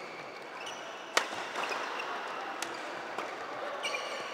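Badminton rally on a hard court: two sharp racket hits on the shuttlecock about a second and a half apart, the first the loudest. Short, high squeaks of court shoes on the floor come in between.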